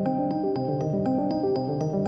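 Background music: a light keyboard tune of evenly paced notes.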